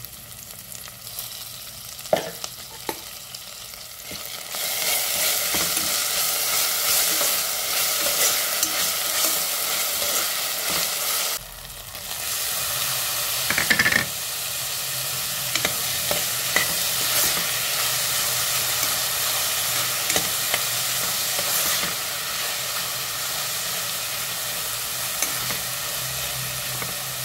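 Onions, green chillies and whole spices frying in oil in a pan, sizzling steadily while a spoon stirs and scrapes. The sizzle turns louder about four seconds in and breaks off briefly near the middle. It carries on after chopped tomatoes go into the pan.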